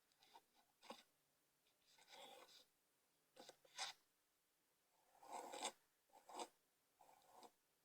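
A girl hiccuping: about half a dozen faint, short, breathy catches at irregular intervals, some ending in a sharp 'hic'.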